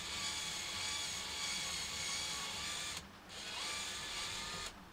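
Cordless brushless drill running at low speed, drilling out the stripped muffler bolt hole on a Husqvarna 365 chainsaw, the first step before tapping new threads. The motor's whine stops briefly about three seconds in, then spins up again and stops just before the end.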